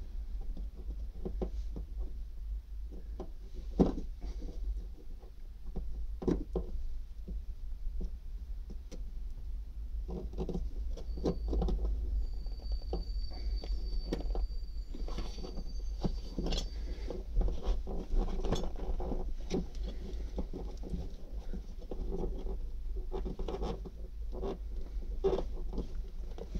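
Hands handling the fuel hoses and plastic connectors on a vehicle fuel tank's pump and sender unit: irregular clicks, knocks and rustles, busier in the second half, over a steady low hum.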